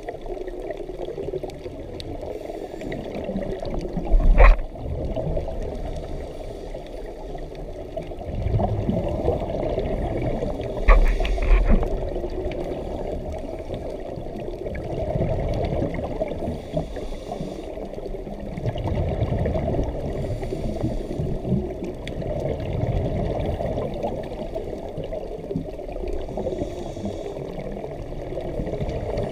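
Muffled underwater sound picked up by a camera in a waterproof housing: a scuba diver's exhaled bubbles rumble in swells every few seconds. Two sharp knocks stand out above the rumble.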